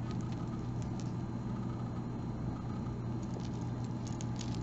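A steady low hum throughout, with scattered faint light clicks of a beaded necklace's glass beads and metal chain links being handled in the fingers.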